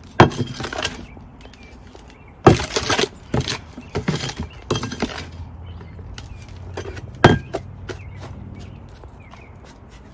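Plastic hand scoop digging into loose potting mix in a plastic tub and knocking against the rim of a plastic nursery pot as soil is tipped in: a string of irregular sharp knocks and scrapes, over a steady low hum.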